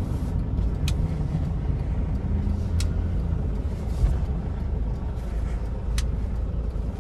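Car running, a steady low rumble with three brief sharp clicks about one, three and six seconds in.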